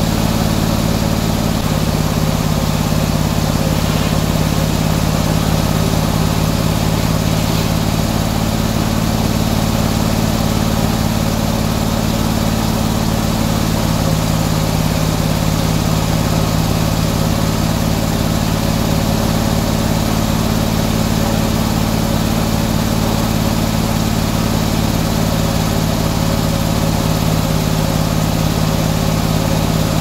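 Antique circular sawmill running without cutting: the engine driving the head saw drones steadily at constant speed, its tone shifting slightly twice.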